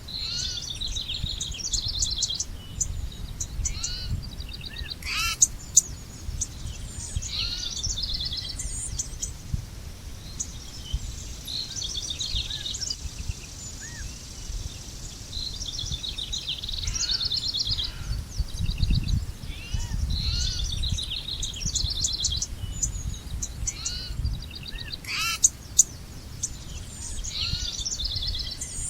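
Several songbirds singing and calling, with short trilled phrases and chirps repeated throughout and overlapping, over a steady low rumble.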